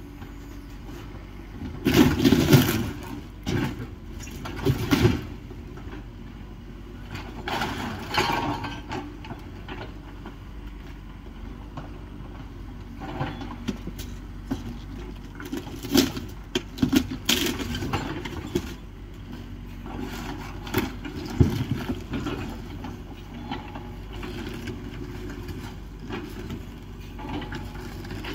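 Compact excavator's diesel engine running steadily during demolition, with irregular crashes and clatter of breaking timber and sheet metal; the loudest crash comes about two seconds in, with more scattered through.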